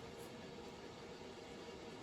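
Near silence: faint steady room tone, with no squeaks or other distinct sounds.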